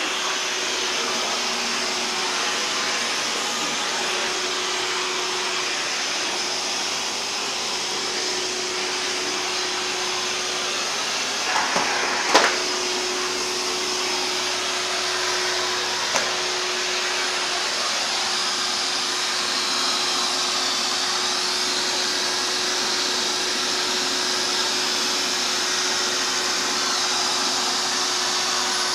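Vacuum cleaner running steadily with a constant hum. A few brief knocks come near the middle, and one more a few seconds later.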